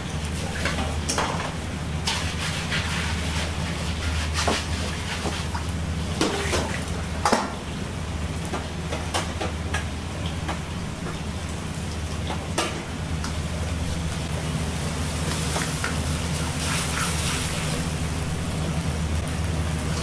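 Commercial Chinese wok range in use: a steady low rumble under a metal ladle clanking sharply against the woks several times in the first dozen seconds. Food hissing and sizzling in a hot wok comes up in the later part.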